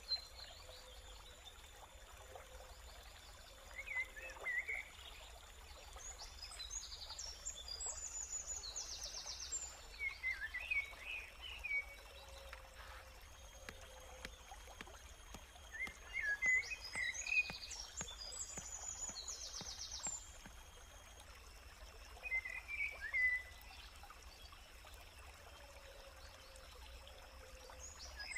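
Birds singing: a short chirping phrase repeated about every six seconds, with higher, faster trills in between, over a faint steady rush of stream water.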